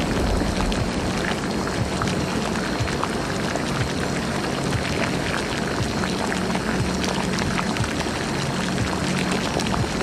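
Bubbling liquid sound effect: a steady, dense run of small pops and gurgles, with a low steady hum beneath.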